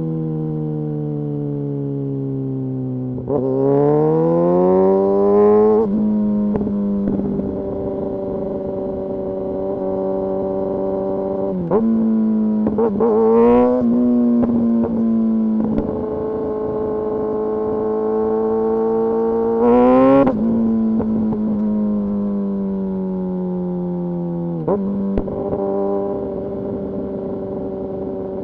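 Kawasaki Ninja ZX-6R inline-four sport bike engine under riding load. It slows at first, then revs up hard about three seconds in, changes gear with quick throttle blips around the middle, climbs again to about twenty seconds in, then drops back and settles to a steady cruise.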